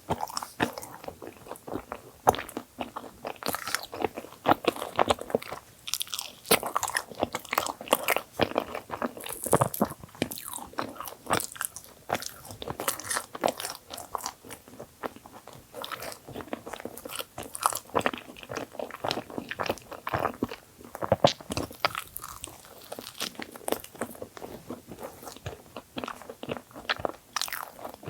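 Close-miked eating of cream-filled dessert bagels: a steady run of biting and chewing with many crisp, irregular crunches.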